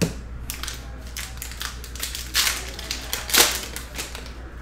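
Foil trading-card pack wrappers crinkling and cards being handled: a string of sharp rustles and crackles, the loudest about two and a half and three and a half seconds in.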